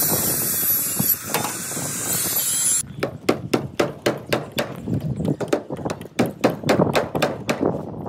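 A handheld circular saw cuts through a wooden plank for about three seconds. It then gives way to quick, repeated hammer blows, several a second, driving nails into a timber formwork board.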